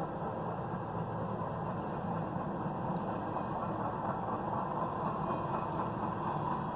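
Steady low rumble of a distant CSX freight train rolling by, blended with the even hiss of falling rain.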